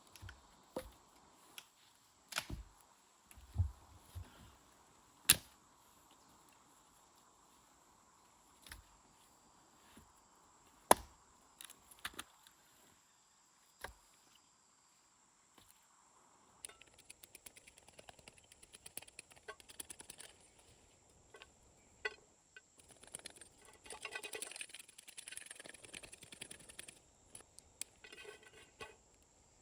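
Scattered sharp knocks or cracks, the loudest about 5 and 11 seconds in. From about 17 seconds on, a busier stretch of small crackles and rustles.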